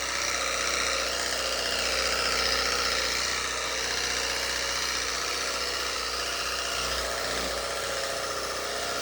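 Battery-powered portable pressure washer's pump motor running steadily while it sprays water through a wide-angle spray nozzle.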